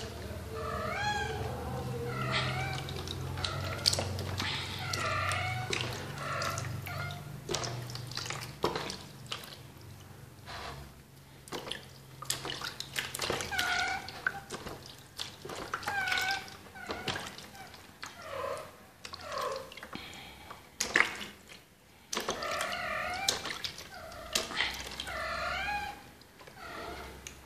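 Wet kitten meowing over and over in high, rising-and-falling cries while being washed in a basin of water, with water splashing and dripping between the calls.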